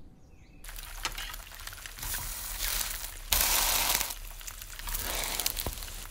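Food sizzling and crackling in a hot pan, starting about half a second in and swelling loudest for about a second in the middle, with a few light clicks.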